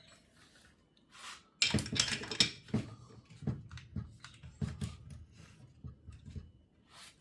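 Irregular clicks and knocks of hand tools and small metal chainsaw parts being handled and set down during bench disassembly. They start after a short quiet and come a few times a second, uneven in spacing and loudness.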